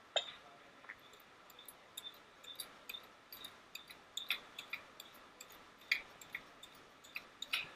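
Faint, irregular short scrapes and clicks of a vegetable peeler drawn in quick strokes along a vegetable laid flat on a cutting board.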